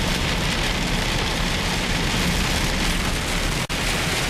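Steady rain falling hard, an even hiss. The sound cuts out for an instant near the end.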